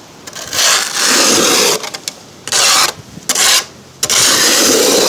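Rough scraping and rubbing noises in four bursts of about half a second to a second each, separated by short quieter gaps.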